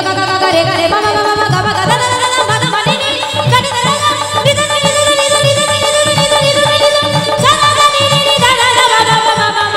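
Live devotional bhajan music: a sustained melodic line with pitch slides over a steady hand-drum beat.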